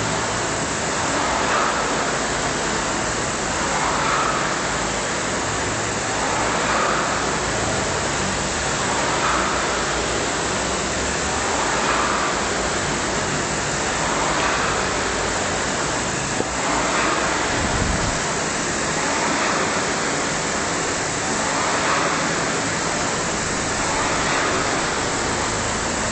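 Rowing ergometer's flywheel whirring steadily, swelling in a whoosh with each stroke about every two and a half seconds, at sprint pace during a 500 m explosive piece.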